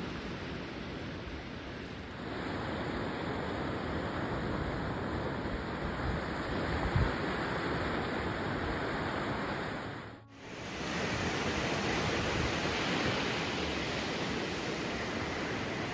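Sea waves washing on the shore, a steady rushing surf sound that cuts out briefly about ten seconds in.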